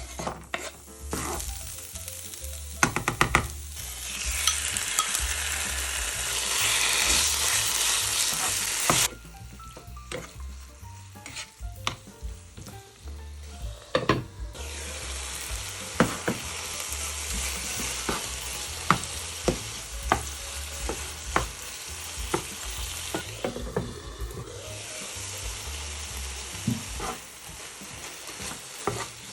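Food sizzling in a frying pan while it is stirred, with a utensil knocking against the pan. The sizzle is loudest for a few seconds, cuts off abruptly about nine seconds in, and comes back steadier around fourteen seconds, with regular sharp taps.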